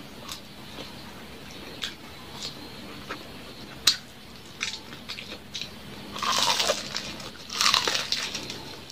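Close-up eating sounds: scattered soft chewing clicks, then from about six seconds in two bursts of loud crunching as crispy chicharon bulaklak (deep-fried pork mesentery) is bitten and chewed.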